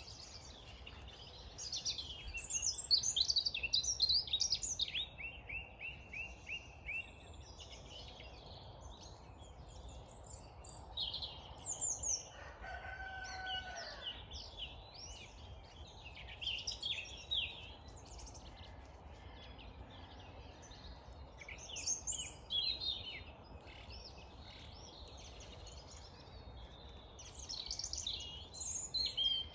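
Dawn chorus: many songbirds singing over one another in a continuous mix of trills and whistles, with a rooster crowing once about twelve seconds in.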